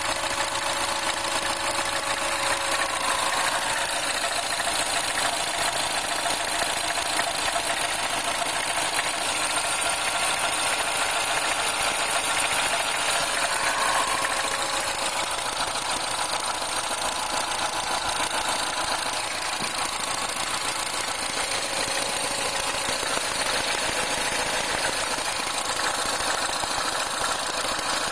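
R56 Mini's four-cylinder engine idling just after a cold start, with a steady mechanical noise that the owner puts down to the timing chain.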